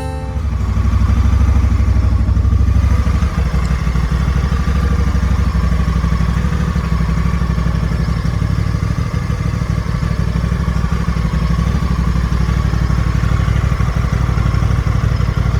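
Motorcycle engine running steadily, with a fast even pulse; it does not rise or fall in pitch.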